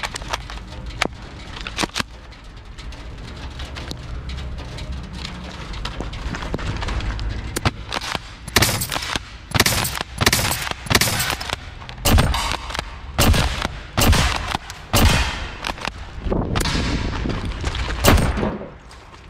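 Cyma 355 airsoft pump-action shotgun: a few sharp clicks as it is handled, then about a dozen shots in quick succession, the pump racked between them, with BBs smacking steel plate targets.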